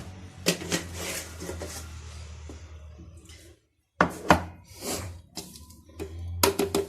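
Kitchen handling sounds: sharp knocks and clinks of a spoon against jars as sugar is added, followed by a rustling hiss. After a brief break, several more knocks come in quick clusters.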